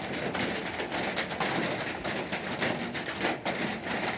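Sandpaper rubbing back and forth over the painted surface of a truck toolbox in quick, uneven scratchy strokes.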